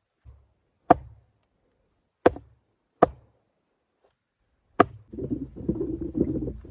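Axe chopping wood: four sharp, separate strikes about a second or so apart as branch stubs are cleared off logs. About five seconds in, a continuous rough rustling noise takes over.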